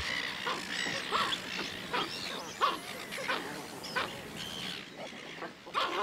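Australian pelican chicks calling: a string of short, squeaky cries, about one every half second.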